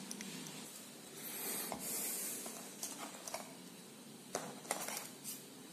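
Faint handling noise of thin steel piston rings: a soft scraping rustle, then a few small, light clicks.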